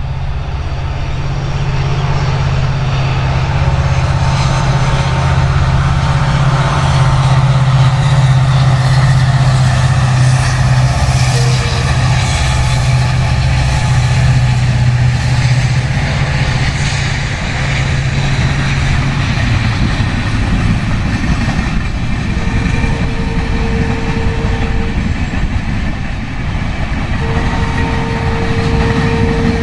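A train hauled by a diesel locomotive running past. A steady low engine drone fills about the first two-thirds, then gives way to the rumble of wheels on rails. Late on, a steady higher tone breaks off once and comes back.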